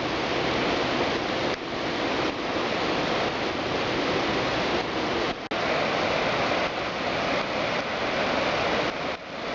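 Brown floodwater rushing steadily over a flooded road and against a guardrail, a loud, even rushing, with a brief break about halfway through.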